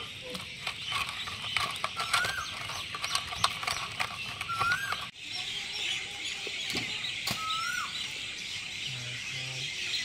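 A bird repeating a short whistled note that rises and then drops, three times about two and a half seconds apart, over scattered clicks and taps in the first half and a steady background hiss.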